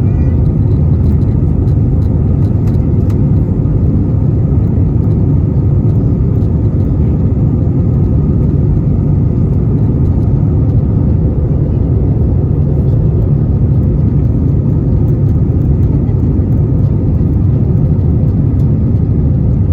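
Airbus A320 cabin noise shortly after take-off: a steady, loud low rumble of the jet engines and the air rushing past the fuselage, with no changes.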